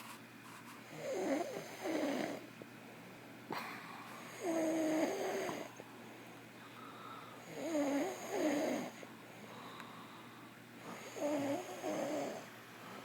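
A sleeper snoring steadily: four wavering snores come about every three and a half seconds, each in two parts and lasting about a second and a half, with quieter breathing between them.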